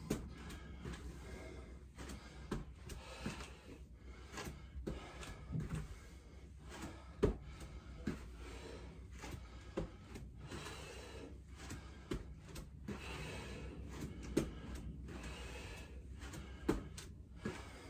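Person doing lunges: feet thudding on the floor at irregular intervals, about one every second or two, under hard breathing from the exertion.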